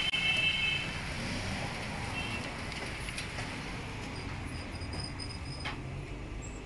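Steady low rumble and hiss of road traffic, with a brief high ringing tone at the start and two sharp clicks, about three seconds in and near six seconds, from mechanics' tools on a motorcycle's rear wheel.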